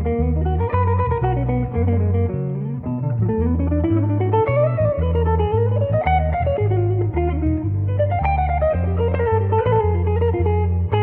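Background music: plucked guitar melody over a steady repeating bass line.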